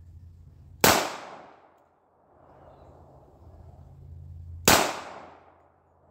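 Two pistol shots from a Remington 1911, almost four seconds apart, each a sharp crack followed by an echo that dies away over about a second.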